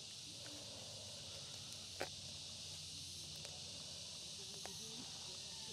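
Faint, steady high-pitched chirring of insects, with a single soft click about two seconds in.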